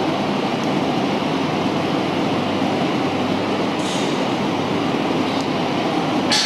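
Hakone Tozan Cable Car, a funicular, in its station: a steady rail rumble with a low hum. Two brief high hissing squeals come about four seconds in and again near the end.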